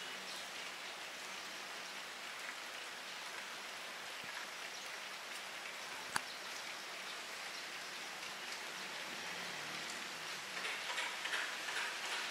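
Steady rain falling, its drops pattering on surfaces, with heavier, louder drop impacts near the end. One sharp click about halfway through.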